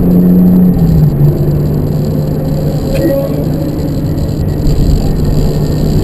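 Porsche 718 4.0-litre flat-six engine droning steadily at cruise, heard from inside the cabin over road noise. Its note steps down about a second in, then holds steady.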